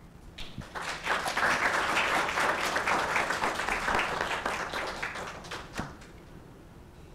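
Applause from a small audience of a few dozen people, many quick hand claps. It rises about half a second in, holds steady for several seconds and dies away near the end.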